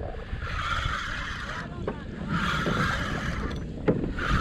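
Kayak paddle strokes, water swishing and splashing in an even rhythm about every two seconds, over a low wind-and-water rumble.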